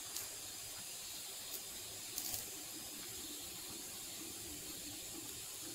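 Rasam simmering in a pan over a gas burner: a soft, steady hiss with a few faint ticks.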